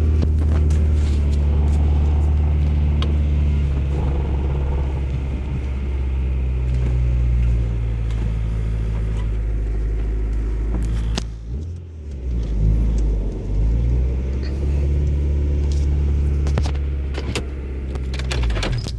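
Car with a bad bearing, giving a steady low drone whose pitch shifts now and then and dips briefly about two-thirds of the way through before coming back.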